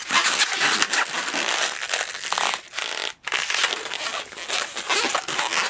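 A 260 latex modelling balloon being rubbed and twisted by hand into a small bubble, giving a dense, scratchy rubbing that breaks off briefly about three seconds in.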